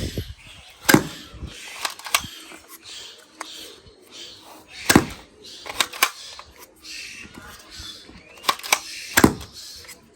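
A string of sharp clicks and snaps, some in quick pairs, over a faint voice.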